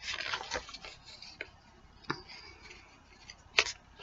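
Glossy paper brochure pages being handled and turned: a paper rustle at the start, then a few separate sharp paper snaps and taps, the loudest near the end.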